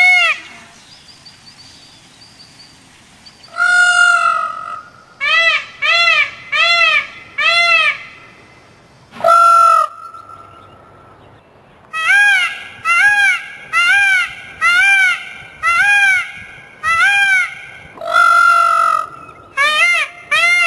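Indian peafowl calling: loud, honking calls in three bouts. Each bout opens with a longer drawn-out note, then runs on in short arched calls about two a second.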